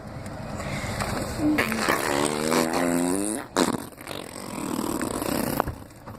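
A baby blowing raspberries, sputtering fart-like noises through the lips, with a brief wavering vocal sound in the middle and a sharp click about three and a half seconds in.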